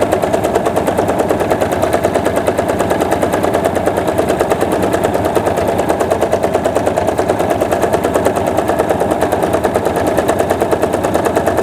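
Electric sewing machine stitching a straight seam at a steady speed: a rapid, even clatter of the needle going up and down.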